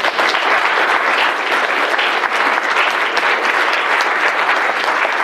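Audience applauding: many hands clapping in a dense, steady patter that starts suddenly.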